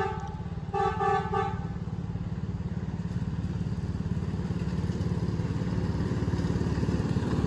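Horn of a ride-on miniature diesel-outline locomotive: one blast ends just after the start, then a second short blast about a second in. Under it the locomotive's small engine runs steadily with a pulsing beat, growing louder as the train approaches.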